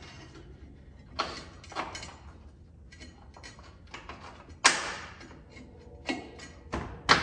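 Metal clanks and clicks of a steel motor mount and its bolts being fitted against a truck's steel frame by hand: a few sharp knocks, the loudest about four and a half seconds in, with quick light clicks between.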